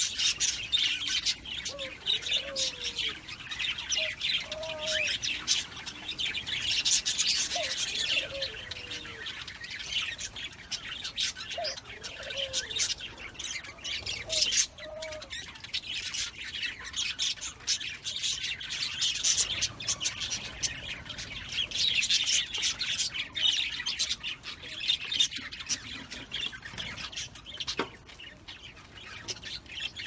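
Budgerigars chattering: a dense, continuous chirping warble with short squawks mixed in.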